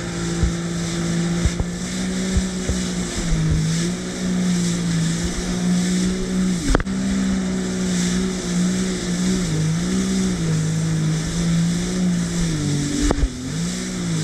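Jet ski engine running at speed across choppy sea, its pitch rising and dipping again and again, over a steady hiss of wind and water. Two sharp knocks stand out, one about halfway through and one near the end.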